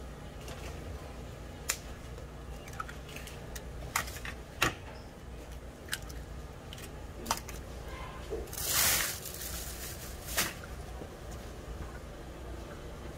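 Eggs being cracked by hand against the rims of metal egg-bread molds: a series of sharp, separate shell clicks and taps, with a longer rasping noise about nine seconds in, over a steady low hum.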